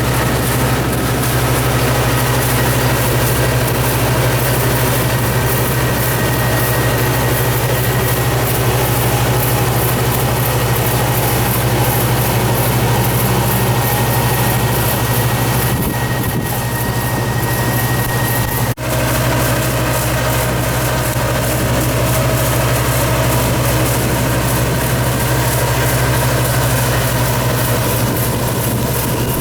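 Engine of a Yanmar farm machine running steadily, a constant low hum with no change in speed. The sound breaks off for an instant a little past halfway and carries on the same.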